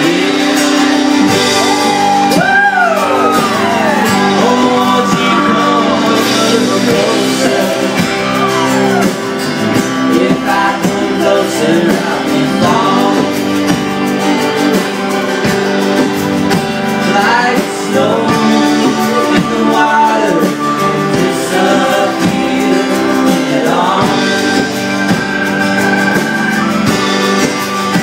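Live country band playing a passage between sung lines, with a fiddle playing sliding melodic lines over guitars and bass.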